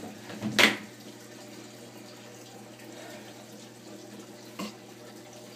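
A loud knock about half a second in and a lighter click about four and a half seconds in, handling noise against the phone held right up to the lizard, over a steady low hum.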